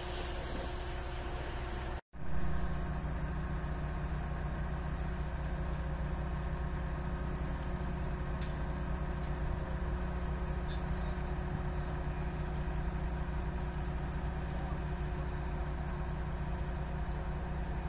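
The engine of a crawler-mounted track-laying machine running steadily at idle, a low even drone with a pulsing beat. It drops out abruptly for a split second about two seconds in, at a cut in the recording.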